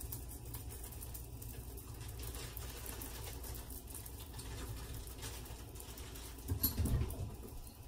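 Low steady kitchen hum with faint scattered ticks, then a short cluster of soft knocks about six and a half seconds in.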